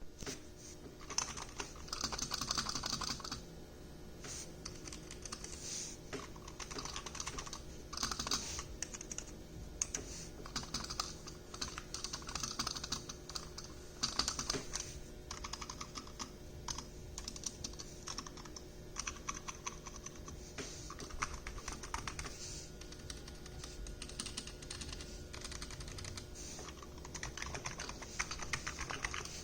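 Typing on a Razer Huntsman Mini keyboard with red linear optical switches: quick runs of keystrokes clattering in bursts, with sparser keystrokes between them.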